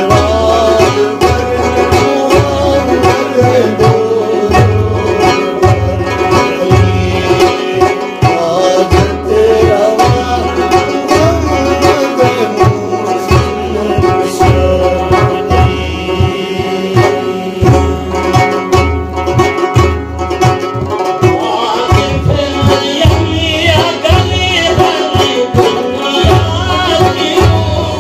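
A man singing a Persian devotional ginan to his own long-necked plucked lute, with a steady low beat under the melody; the vocal line climbs higher about two thirds of the way through.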